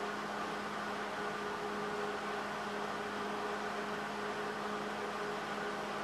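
Steady, unchanging hum with an even hiss: background room tone of a workshop.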